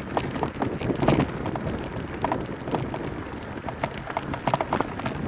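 Electric mountain bike clattering and rattling over a rough trail, irregular knocks from the bike over a steady rumble of tyre and wind noise.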